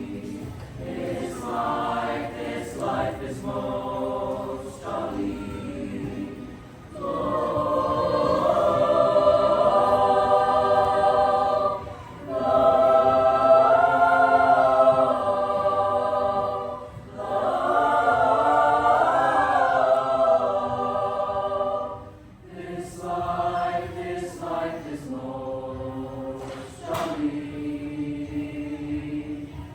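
Choir singing in harmony, with long held chords that swell loudest through the middle, then softer, shorter phrases ending on a held note.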